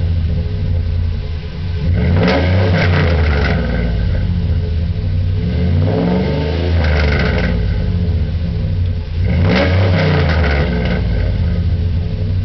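Dodge Ram's 5.7 L Hemi V8 exhaust through a Flowmaster 50 HD Series single-in/single-out muffler, revved three times from idle while parked, each rev climbing and falling back to idle.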